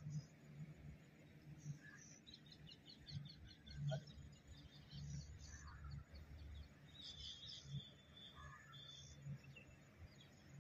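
Faint outdoor ambience: small birds chirping now and then, with a quick run of chirps a couple of seconds in and another cluster around seven seconds, over a low steady rumble.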